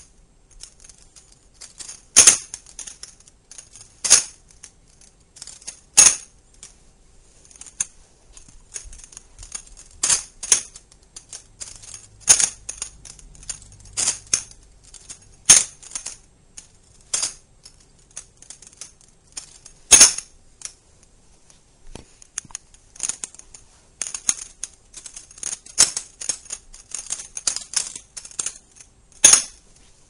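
Bear & Sons 114B balisong being flipped through tricks: sharp metal clicks and clacks as the handles swing open and shut around the blade. The clacks come irregularly, a loud one every second or two with quick runs of lighter ticks between, and they get busier near the end.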